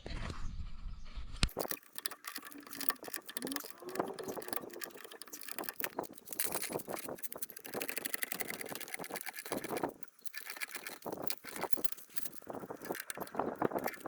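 Hand tools working on metal during a car's front wheel bearing job: a dense run of rapid metallic clicking and clinking that starts abruptly about a second and a half in.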